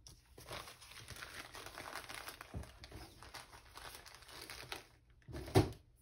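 Sheets of paper rustling and crinkling as they are handled and sorted through, then one sharp knock near the end.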